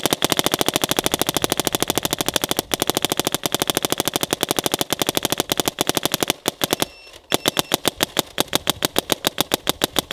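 Planet Eclipse Etha 2 electronic paintball marker firing paintballs in rapid strings of sharp pops, about a dozen shots a second for the first six seconds, a brief pause, then a slightly slower string. It fires without missing a beat while running unlubricated in sub-freezing cold.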